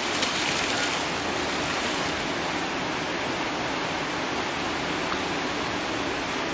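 Fast-flowing river rushing steadily, a constant even roar of water.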